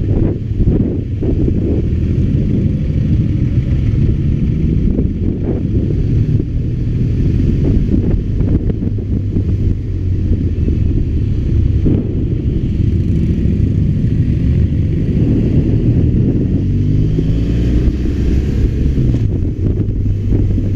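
BMW R1200RT boxer-twin engine running on the move, with wind noise on the microphone; the engine pitch shifts up and down near the end.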